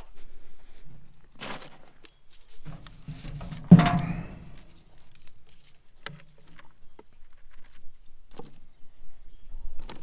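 Rolls of baler twine being handled in the twine box of a Gehl 1475 round baler: scattered knocks and rustles, with one loud knock a little under four seconds in that rings briefly.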